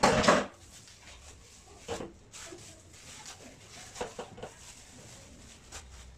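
Kitchen handling sounds as dough is broken into a stainless steel bowl at a sink: a short, loud clatter and rustle right at the start, then a few light knocks about two seconds in and again around four seconds in.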